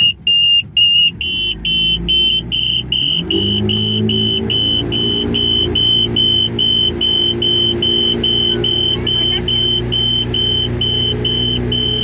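Boat's engine warning alarm beeping, a quick steady run of short high beeps about two or three a second, whose cause the crew does not know. Under it the boat's engine runs, rising in pitch about three seconds in and then holding steady.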